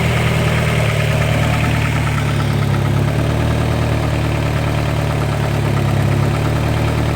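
Car engine idling steadily with a fast, even ticking over its running. The owner holds that the tick is not lifter tick.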